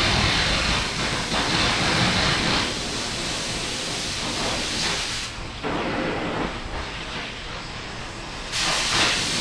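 Oxy-fuel cutting torch hissing steadily as it cuts the steel of a loader bucket edge. The hiss drops off about five seconds in and comes back at full strength near the end.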